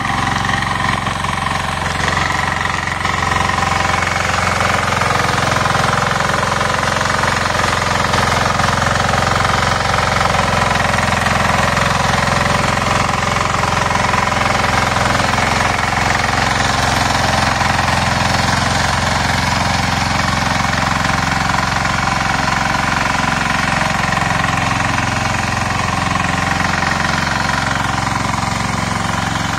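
Agrimate power weeder's engine running steadily under load, its rotor tilling wet paddy mud.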